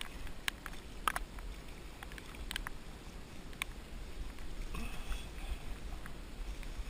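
Steady low wind rumble on an action camera's microphone, with a few sharp clicks and taps in the first four seconds.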